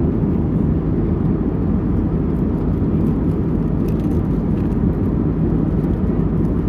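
Airliner cabin noise: the steady, low rush of jet engines and airflow inside the passenger cabin.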